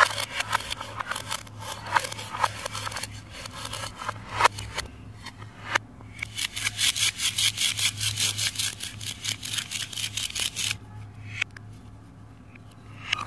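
Plastic toy knife sawing and scraping through a velcro-joined plastic toy vegetable on a plastic cutting board, with clicks of plastic on plastic. About six seconds in comes a run of quick, even rasping strokes, about five a second, for some four seconds, then quieter handling of the plastic pieces.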